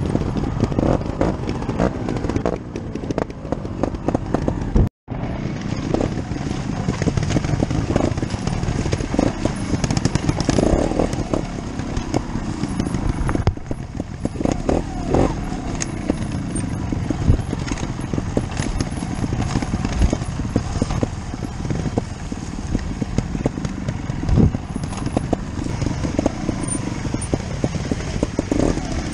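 Scorpa 250 two-stroke trial motorcycle running at low speed over rocks and leaf litter, heard from on board, with frequent knocks and clatter from the tyres and chassis on stones. The sound cuts out completely for a moment about five seconds in.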